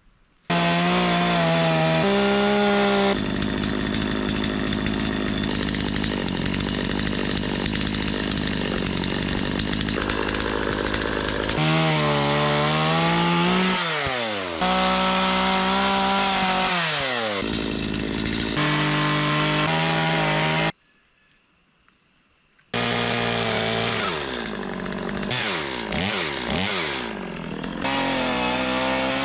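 Stihl two-stroke chainsaw running and cutting wood, revving up and falling back toward idle several times, its pitch gliding down as the throttle is released. The sound cuts off abruptly in places, with about two seconds of silence about two-thirds of the way through.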